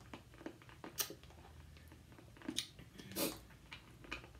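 Faint wet mouth clicks and lip smacks from sucking on a hard cinnamon jawbreaker candy, a few scattered clicks about a second in and again near three seconds.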